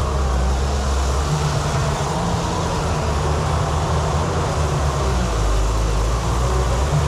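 Diesel engine of a JCB excavator running steadily under load, a continuous low drone.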